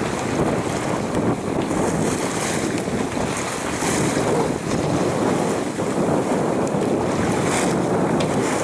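Wind buffeting the microphone over the wash of waves around a small sailboat under sail, a steady rushing noise with a few brief hissing swells.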